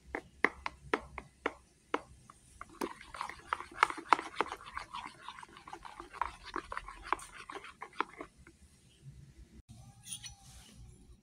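Metal spoon stirring thick batter in a plastic bowl: spaced clicks of the spoon against the bowl's side at first, then a quick run of clicks and scrapes that stops about eight seconds in.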